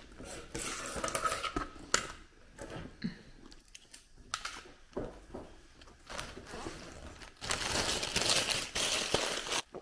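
Rustling and small knocks from rummaging through a handbag, then a clear plastic bag crinkling as it is handled for about two seconds near the end.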